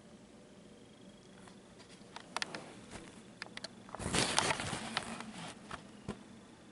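Kitten moving close to the microphone: scattered light clicks and taps, then a louder rustle lasting about a second, about four seconds in.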